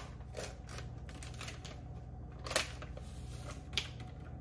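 Light handling sounds of kitchen utensils and a container as chocolate Keto Chow powder is added to a mixing bowl: soft rustling and small clicks, with two sharper taps about two and a half and nearly four seconds in, over a steady low hum.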